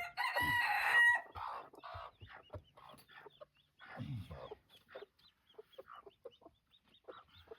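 Chickens: broody hens clucking and young chicks peeping over and over, with a loud drawn-out call from one bird lasting about a second at the start.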